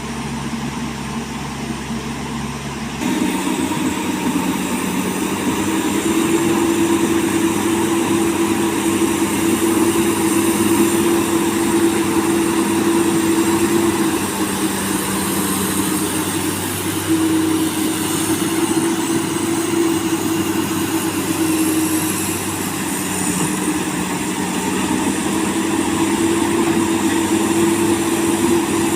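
Komatsu PC200 hydraulic excavator's diesel engine running under working load while digging sand. About three seconds in the sound changes abruptly and grows louder, and its pitch dips briefly a couple of times as the load varies.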